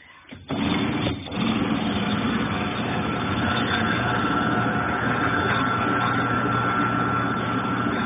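Consul Ideale 4 kg washing machine's motor and drum starting up abruptly about half a second in, dipping briefly, then running steadily with a faint whine. This is its spin stage, which the owner says turns only weakly because the machine is not spinning properly.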